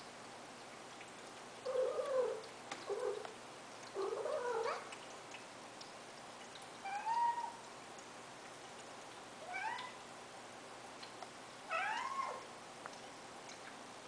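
Long-haired domestic cat meowing, about six short calls a couple of seconds apart, most of them rising in pitch.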